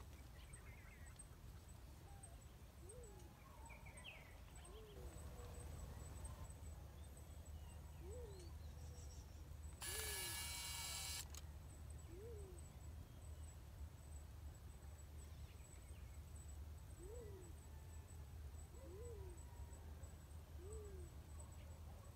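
Faint, low dove coos, each a short note that rises and falls, repeated every one to four seconds. A brief hiss breaks in about ten seconds in, and a low steady rumble runs underneath.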